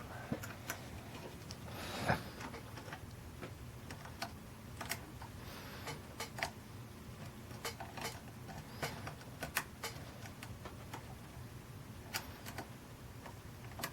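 Faint, irregular small metallic clicks and ticks of a lock pick and tension wrench working the pin tumblers of a six-pin Yale cabinet lock.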